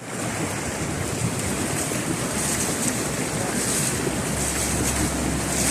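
Heavy rain pouring down, a steady dense hiss with a low rumble of wind on the microphone.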